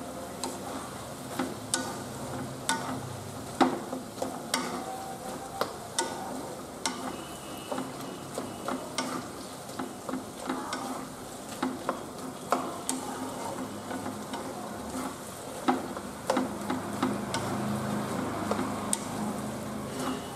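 A wooden spatula stirring a wet spinach and vegetable mix in a non-stick kadai, scraping and knocking against the pan at irregular intervals. A soft sizzle runs under it.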